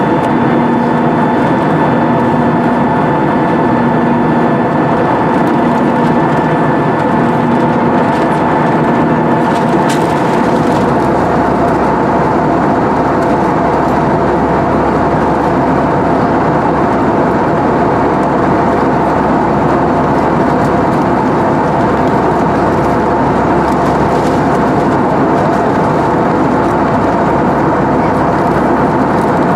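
Airbus A320's jet engines heard from inside the passenger cabin, a steady loud drone with several steady tones over it. About ten seconds in, a faint pulsing hum stops and a deeper rumble joins.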